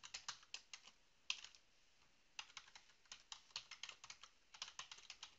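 Computer keyboard being typed on: a run of quick, faint keystrokes with a short pause near the middle.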